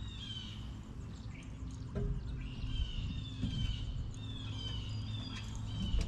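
A bird calling over and over, a quick run of short falling chirps, above a steady low rumble.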